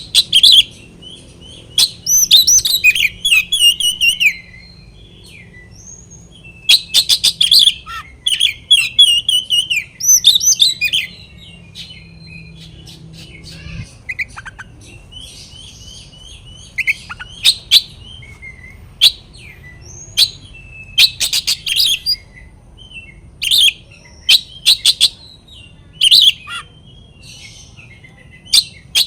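Oriental magpie-robin (kacer) singing loudly in a challenging, territorial song: rapid whistled phrases and sharp chirps in long bouts during the first half, then shorter calls every second or so.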